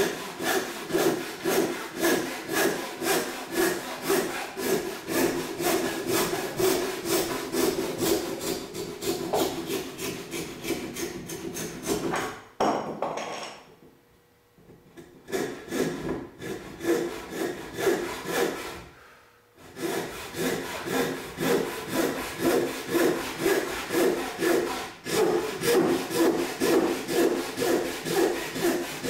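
Backsaw rip-cutting the cheek of a tenon in planed softwood construction lumber, in steady strokes about two a second. The sawing stops briefly twice around the middle.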